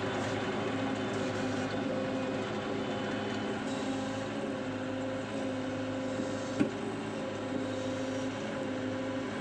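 A diesel engine of heavy machinery running steadily at a constant speed, with one sharp click about two-thirds of the way through.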